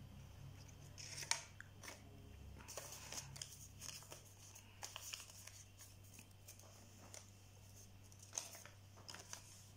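Faint, scattered clicks and rustles of paper being handled, over a low steady hum; the sharpest click comes about a second in, another near the end.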